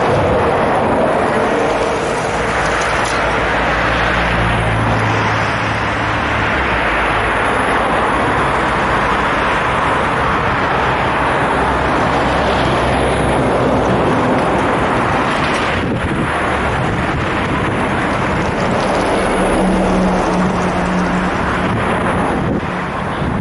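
Busy road traffic: a steady stream of cars driving past close by, with tyre noise and engine hum and no break.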